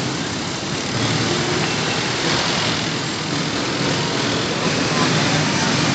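Steady street traffic noise, with motor vehicle engines running.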